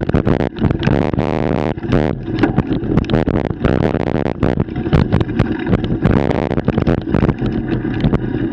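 Bicycle riding over a bumpy dirt and gravel trail, with steady wind buffeting the microphone and many quick rattles and knocks from the bike and camera mount.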